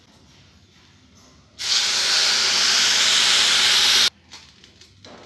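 Water poured into a hot kadhai of roasted semolina and vegetables, hissing loudly as it flashes to steam. The hiss starts abruptly about one and a half seconds in, holds steady for about two and a half seconds, and cuts off suddenly.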